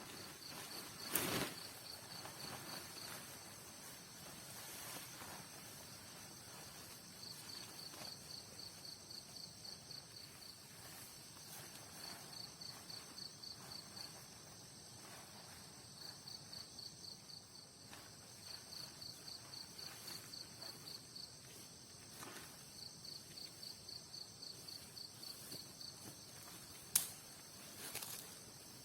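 Night insects chirping: short trains of evenly spaced high pulses, repeated every few seconds over a steady high insect hum. A few sharp clicks sound about a second in and again near the end.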